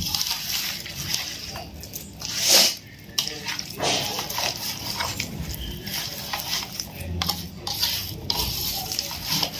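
Raw mango pieces coated in oil, chilli and mustard powder being squished and turned by hand in a steel bowl: irregular wet squelching and rustling, with a louder burst about two and a half seconds in.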